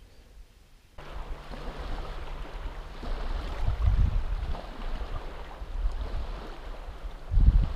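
Wind buffeting the microphone in gusts, with small waves lapping at a sandy river shore; it starts suddenly about a second in, and the gusts are loudest near the end.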